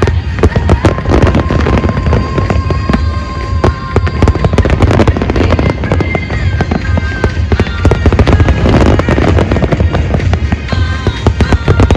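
Large fireworks display firing a dense, rapid barrage of bangs and crackling shell bursts, with music playing along.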